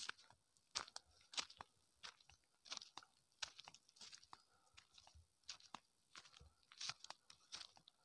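Faint footsteps crunching on a stony dirt path, short sharp steps at a walking pace.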